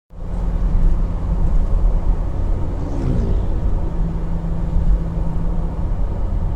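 Car driving, heard from a dashcam inside the vehicle: a steady low engine and road rumble with a constant hum, and a brief pitched sound about three seconds in.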